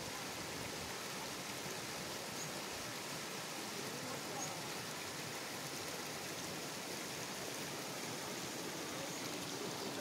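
Small waterfall cascading over rocks into a pool: a steady rush of water.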